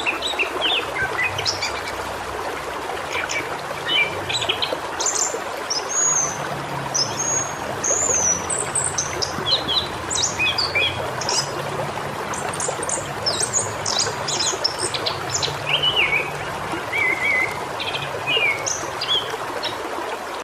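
Several birds chirping and trilling in quick, overlapping calls over the steady rush of a waterfall.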